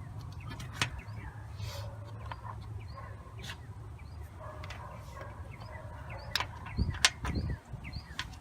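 Birds chirping in short, quick falling calls over a steady low hum. A few sharp clicks and knocks of engine parts being handled come through, the loudest about seven seconds in.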